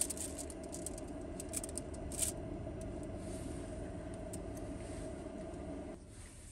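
A steady motor hum with one held tone and a low rumble, with scattered light ticks on top. It cuts off abruptly about six seconds in.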